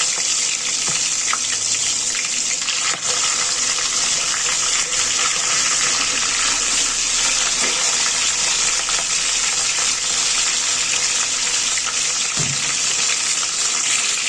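Crab pieces frying in hot oil, a steady loud sizzle.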